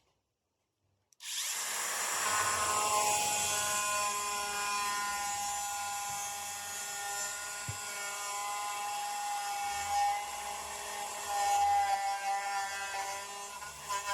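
An angle grinder fitted with an improvised two-screw cutter starts about a second in and runs steadily with a high whine, its pitch dipping a little early on, while it cuts a hole.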